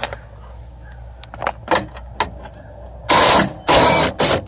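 A Snap-on 14.4-volt 3/8-inch cordless power tool running in two short bursts of about half a second each, turning out a door bolt, after a few light clicks and knocks.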